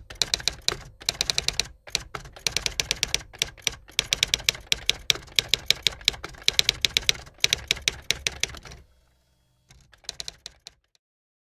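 Typing sound effect: rapid runs of sharp clicking keystrokes with short pauses between runs. The clicks stop about nine seconds in, then one last short run follows about a second later.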